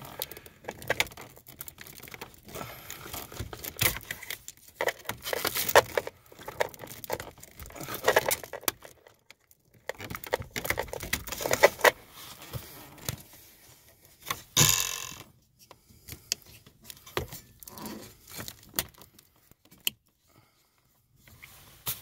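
Plastic wiring-harness connectors under a car's dashboard being pressed at their release tabs and pulled apart, with irregular clicks, rattling and rustling of the loose wires. A louder clatter comes about two-thirds of the way through.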